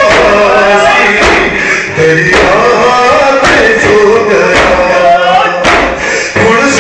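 A noha (Shia lament) sung by a male voice, with a crowd of mourners striking their chests in unison about once a second (matam).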